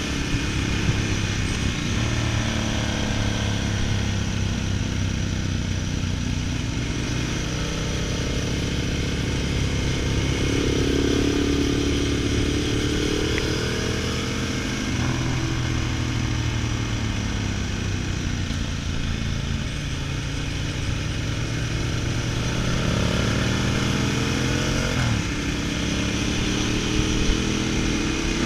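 Ducati Multistrada 1000DS's air-cooled L-twin engine under way, its pitch climbing and dropping several times as the bike accelerates and eases off.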